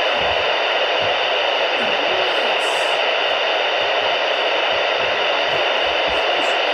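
Radio static: a steady, even hiss from a receiver with no programme coming through.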